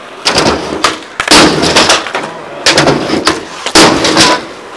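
Skateboard riding a wooden ramp and concrete: wheels rolling with several loud clacks and slaps as the board hits the ramp and lands, the loudest about a second in and again near four seconds in.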